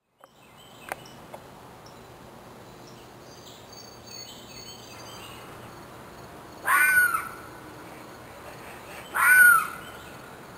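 Crow cawing twice, two loud harsh calls about two and a half seconds apart, with faint small-bird chirps before them.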